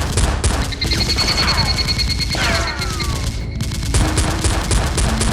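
Rapid gunfire sound effects dubbed over a Nerf blaster fight: dense overlapping shots, settling into an even run of quick shots in the last second or so.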